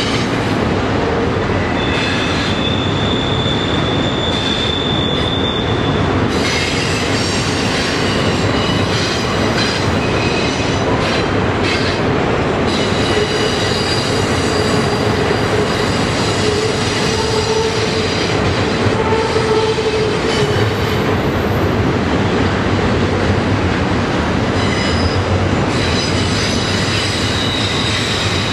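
A long double-stack intermodal freight train rolling steadily across a steel truss bridge: a continuous rumble of wheels and cars, with high-pitched wheel squeals that come and go.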